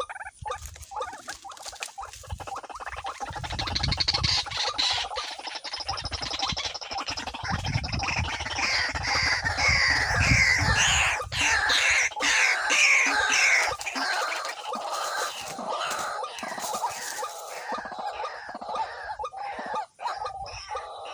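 White-breasted waterhen calling over and over, a dense run of harsh croaking calls that grows loudest about halfway through and then thins out.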